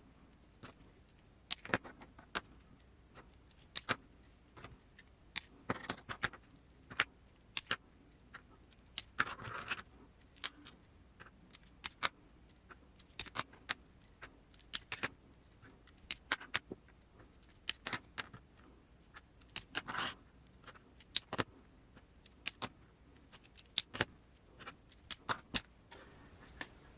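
Scattered light clicks and clinks of small parts being handled while RC crawler suspension links are adjusted to length, with a brief rubbing sound about nine seconds in and another around twenty seconds.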